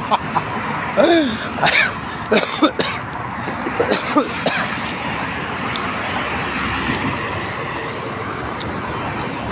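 A man laughing and making a few short vocal sounds, then a steady rush of outdoor noise.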